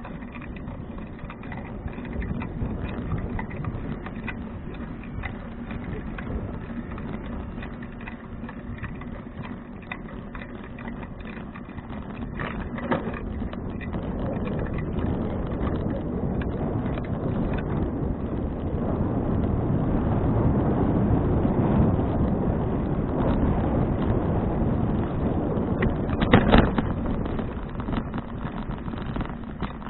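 Wind and road rumble picked up by an action camera riding on a moving touring bicycle, swelling louder through the middle, with a sharp knock near the end as the bike goes over a bump.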